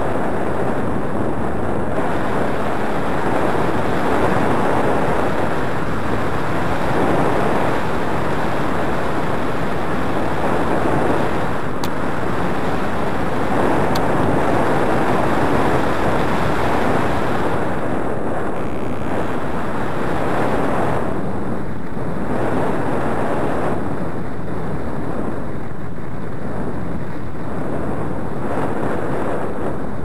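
Wind noise from the airflow over a paraglider's harness-mounted camera microphone in flight: a steady, loud rush that swells and eases slowly.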